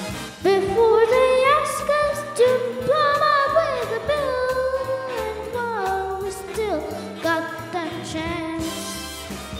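A child singing live into a microphone: long held, wavering notes that climb at first and then step down through the second half, over a steady instrumental accompaniment.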